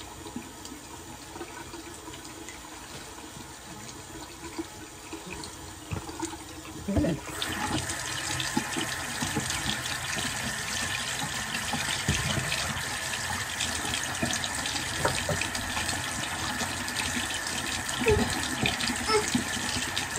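Bathroom sink tap running into the basin, turned up to a louder, steady flow about seven seconds in. A few short knocks at the basin along the way.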